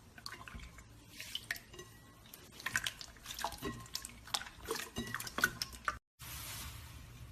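Slime being squeezed and worked by hand, a dense run of wet clicks and pops from trapped air. It cuts off about six seconds in, and a steady hiss follows.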